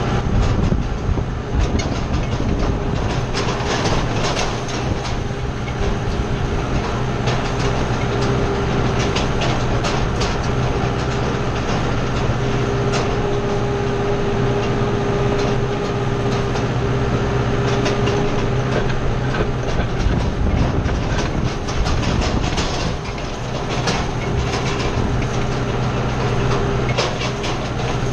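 Kubota tractor's diesel engine running steadily under load while towing a finger-wheel hay rake, with irregular clicking and rattling from the rake and hitch.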